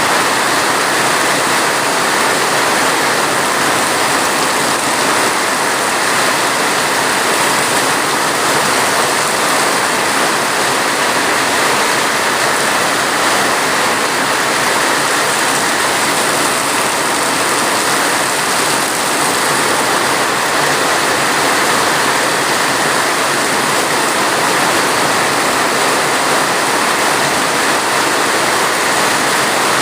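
Steady heavy rain falling, an even, unbroken wash of sound.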